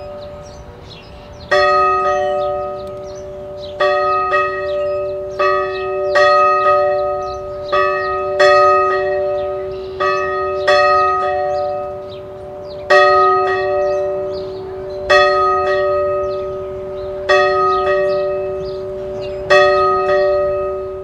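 A single church bell tolling: about a dozen strokes, one every one to two seconds, each struck on the same note and left to ring on.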